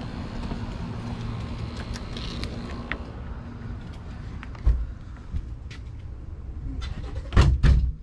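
Walking in through a door: a steady low hum fades about three seconds in, then a thump about halfway through and two heavy thumps near the end, the loudest sounds.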